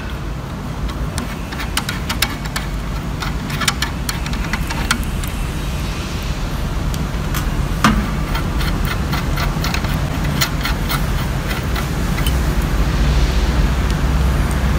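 Steady low hum with scattered light metallic clicks and ticks as the spring cap and spring-pressure adjusting screw are unscrewed from a multi-hole mechanical diesel injector held in a bench vise. One sharper click comes about eight seconds in.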